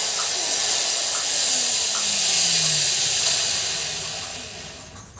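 Corded electric drill running at speed, spinning a water pump's magnet rotor in its chuck, then winding down over the last couple of seconds.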